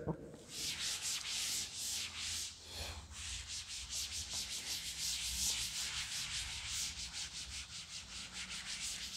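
A chalkboard being erased with a cloth duster: quick back-and-forth rubbing strokes, a dry hiss that repeats several times a second.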